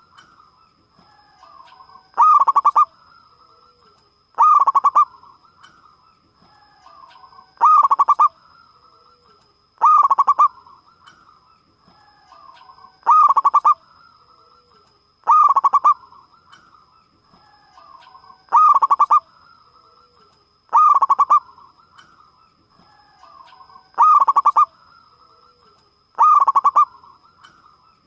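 Zebra dove (perkutut) cooing: a loud phrase of quick, ringing coos repeated about every two and a half to three seconds, ten times, with softer calls between the phrases. A faint steady high tone runs behind.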